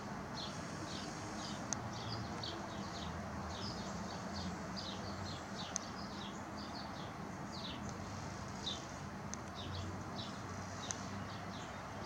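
Small birds chirping, short high chirps a few times a second, over a steady low rumble of background noise.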